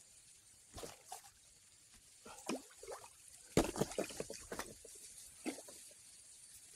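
Water sloshing and splashing against a bamboo raft as it moves along a river, in short irregular bursts with the busiest stretch around the middle.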